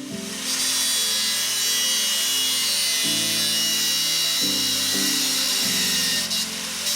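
A power tool cutting a notch into a small piece of steel box section: a steady high hiss that starts about half a second in and dips briefly near the end. Background music plays throughout.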